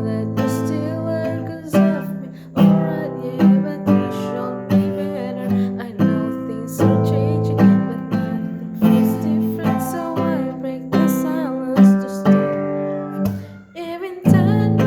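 Acoustic guitar strummed in a steady rhythm of repeated chords, with a voice singing over it in several phrases.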